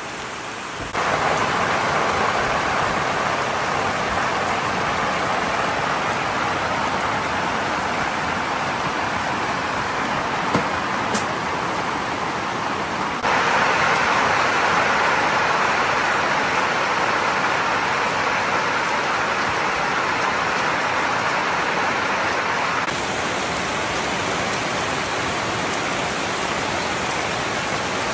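Steady rain falling, a dense even hiss. It jumps louder abruptly about a second in and again near halfway, then eases slightly near the end.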